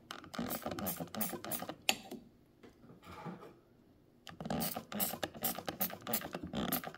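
Rapid scratchy scrubbing strokes on the grimy vintage Kenmore sewing machine as it is cleaned, several a second, pausing for about two seconds in the middle before starting again.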